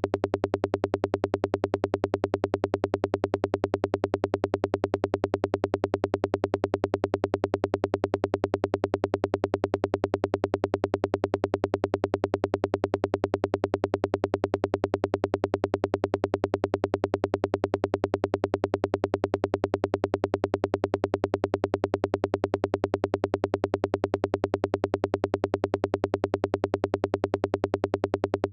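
Software modular synthesizer patch playing a steady low drone chopped into a rapid, perfectly even pulse that does not change: a forest psytrance sound effect under construction.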